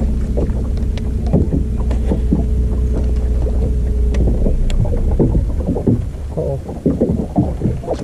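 A boat's motor running steadily, with scattered knocks, as from water and gear against the hull. The motor's rumble eases off about six seconds in.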